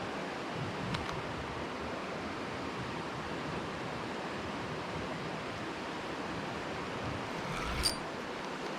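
Steady rush of flowing river water, with a faint tick about a second in and a sharp click near the end.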